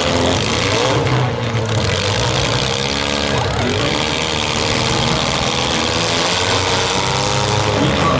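Several demolition derby cars' engines running and revving together, a loud, steady mix of overlapping engine tones that waver up and down.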